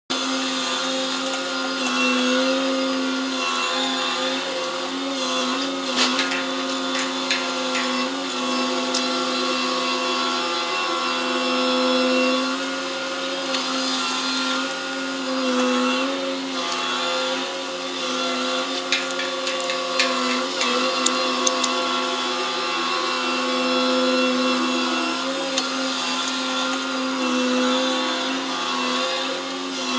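Gravel carrier's deck grab crane running: a steady machine drone that rises and falls slightly in pitch and level as the grab is hoisted, swung and dumped, with a few sharp clanks.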